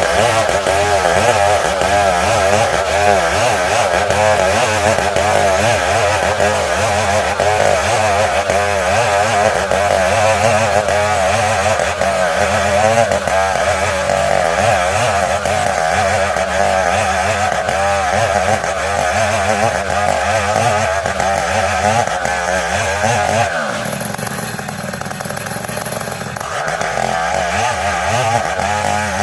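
Old chainsaw running hard, sawing dense ulin ironwood, its engine note wavering under load. Near the end it eases off for about three seconds, then picks up again.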